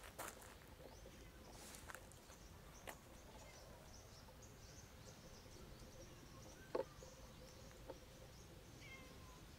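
Near silence in the open air, broken by a few soft rustles and clicks in dry leaf litter where monkeys are foraging, with one sharper snap about two-thirds of the way through. Faint bird chirps come near the end.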